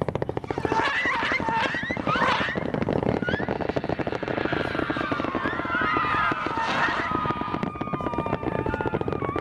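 Hand-lit strobe rockets firing in quick succession: a dense, rapid crackle of pops throughout, with whistling tones that glide upward early on and several held tones sliding slowly down in the second half.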